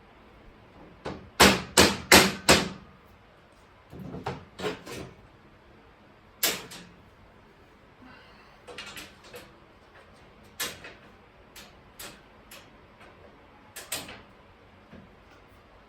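Rubber mallet knocking steel shelf panels down onto the brackets of a metal shelving unit. There is a quick run of four loud knocks about a second in, then scattered, mostly lighter knocks in small groups.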